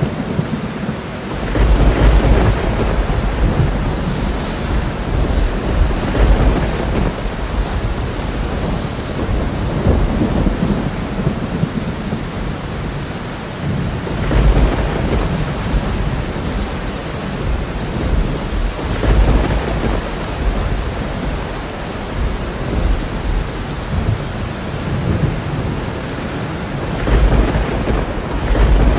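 Thunderstorm: steady heavy rain with deep rolls of thunder swelling up about four times.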